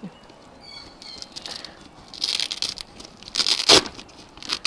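Foil-lined insulation of a food-delivery bag crinkling and rustling under gloved hands as it is pressed into place. It comes in short bursts, about two, three and a half and four and a half seconds in, the middle one loudest.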